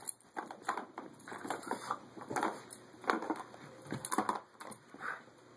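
Hard plastic clattering and knocking from a cat's ball-track toy as a Boston terrier noses at it and shoves it about, in irregular bursts several times a second.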